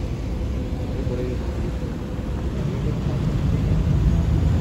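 Steady low rumble of a car ferry under way, its engines and churning wake heard from the open deck with wind buffeting the microphone. It swells louder about three seconds in.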